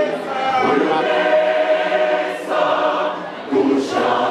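Mixed church choir of men and women singing a hymn in harmony, holding long notes, with a brief drop in level a little over three seconds in.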